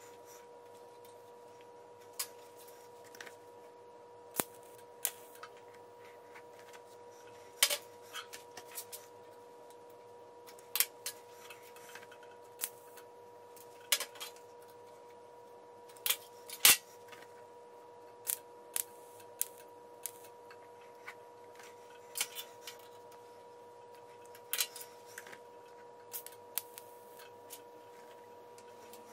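Sharp metallic ticks at irregular intervals, roughly one every second or so, from a freshly TIG-welded steel bolt and the bench vise holding it, typical of hot metal contracting as it cools. Under them runs a faint steady hum.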